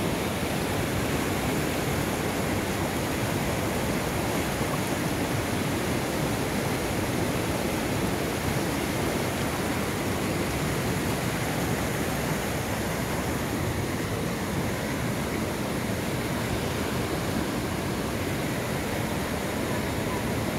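A fast mountain river rushing over rocks: a steady, unbroken noise of flowing water.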